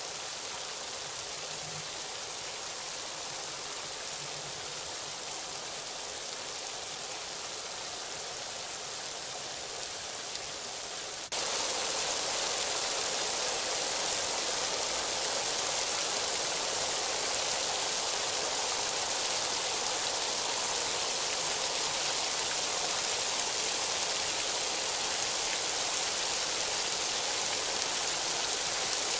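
Steady rain hissing, an even wash of noise; about eleven seconds in it jumps abruptly louder and brighter and holds there.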